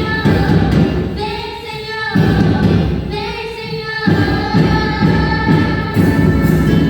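Percussion band drumming under a sung hymn melody. The drums drop out twice for about a second while the sung notes hold, then come back in.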